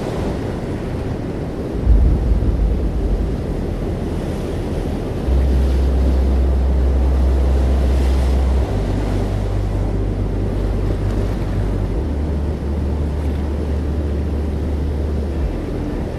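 Ambient soundtrack music with deep held bass notes that change pitch every few seconds, over a steady rushing noise like surf or wind.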